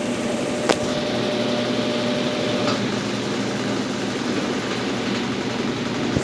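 Consul Facilite 10 kg washing machine running through its rinse-and-spin cycle, a steady motor hum. A sharp click comes about 0.7 s in.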